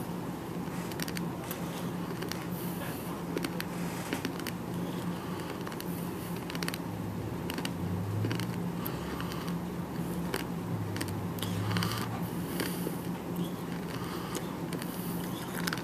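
A person chewing decades-old bubble gum close to the microphone: irregular mouth clicks and smacks, with a steady low hum underneath.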